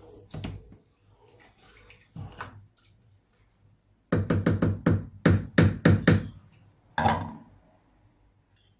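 A wooden spatula stirring soup in a nonstick pot with faint scraping, then tapped against the pot's rim in a quick run of about eight knocks over two seconds, and once more a second later.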